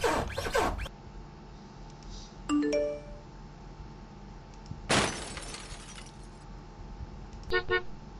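A run of short sound effects from the MagicLight.ai sound-effect library, played one after another. A noisy burst comes at the start. A bell-like ringing chime follows a little over two seconds in, then a longer noisy burst about five seconds in. Two quick pitched tones, like a doorbell, come near the end.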